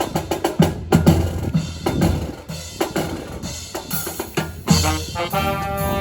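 Marching band drum section playing a rapid snare and bass drum passage. Brass instruments, trombones among them, come in with sustained chords about two-thirds of the way through.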